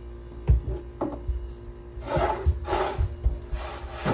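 Seasoning containers being taken out and handled: two sharp knocks, then a couple of seconds of rustling and light clatter.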